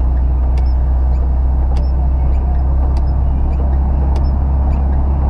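Cabin noise of a square-body Volkswagen Gol with a 1.6 CHT engine cruising on a wet road: a steady low engine and road drone with tyre hiss, and a light tick about once every second and a bit.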